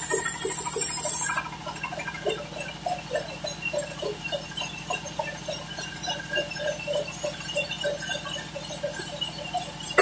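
Sawmill band saw cutting mahogany timber with a loud hiss that stops abruptly about a second in. The saw then runs on with a steady hum under many short, irregular squeaks.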